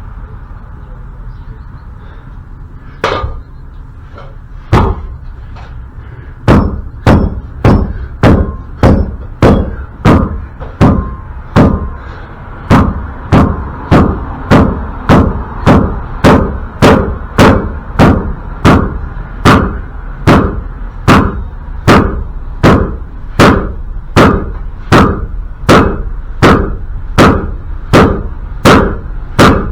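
Hand hammer striking metal: two single blows, then a long steady run of strikes somewhat under two a second, with a short pause about twelve seconds in. It is the sound of trying to drive loose a seized wheel bearing retaining ring on the axle of a 1984 Toyota pickup.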